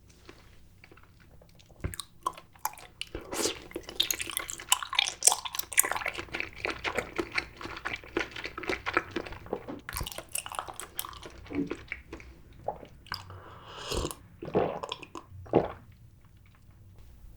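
Close-miked chewing of grape jelly: a dense run of wet mouth clicks that starts about two seconds in, with a few louder bites along the way, and thins out near the end.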